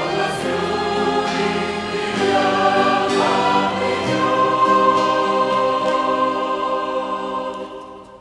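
Church choir singing with a violin ensemble, settling about halfway through onto a long held final chord that fades away near the end.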